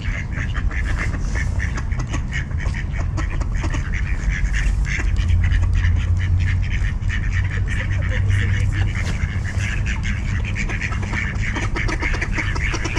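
A group of mallards quacking, many short calls overlapping without pause, over a steady low rumble.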